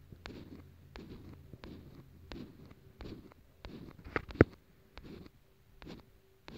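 Soft taps and clicks, about one or two a second, from a finger handling and scrolling a phone's touchscreen. One sharp, much louder click comes a little past four seconds in.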